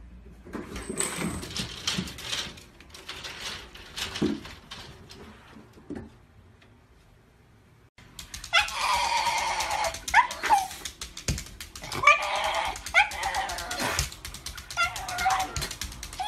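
Shiba Inu vocalising in a series of drawn-out, wavering whines and yelps, the loudest sound here. For about the first half, rustling and a few knocks, then a short quiet moment before the dog starts.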